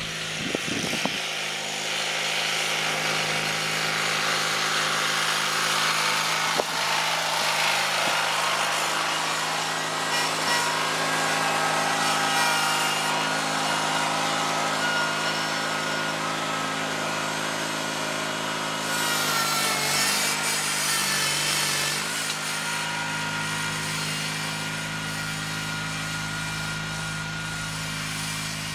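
John Deere 316 garden tractor engine running steadily under load while pulling a Brinly moldboard plow through garden soil, louder as it passes close by. The engine note wavers and dips for a couple of seconds about two-thirds of the way through.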